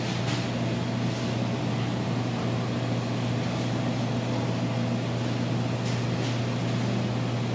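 Steady low mechanical hum with an even rushing noise over it, unchanging throughout.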